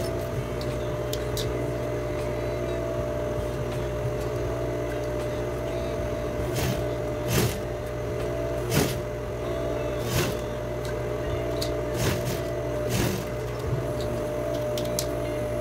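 Sewing machine running steadily as a seam is sewn, with a handful of short clicks or knocks in the middle.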